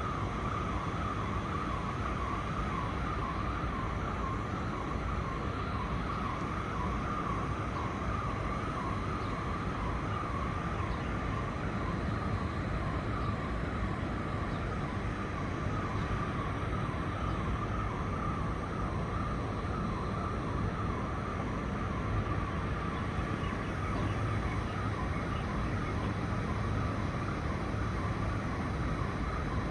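A constant alarm-type tone, one steady pitch with a slight waver, sounding without a break over low city rumble. It is suspected to come from faulty systems equipment on a building roof.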